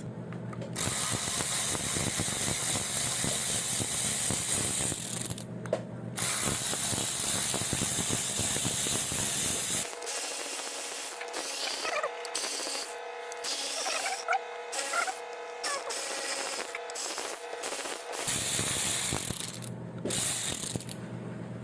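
Ratchet wrench with a 10 mm socket clicking rapidly in bursts as it backs out the already-loosened bolts of an oil pump's rear cover, with short pauses between bolts.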